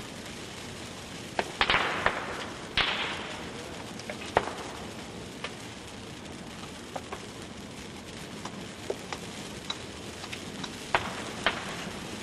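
Burning Christmas tree, the dry conifer fully ablaze: a steady rush of flame with sharp cracks and pops from the needles and branches at irregular intervals. The loudest cluster of cracks, with a brief surge of flame noise, comes about two seconds in, then scattered smaller pops. This is the fast, violent burn typical of a dry tree.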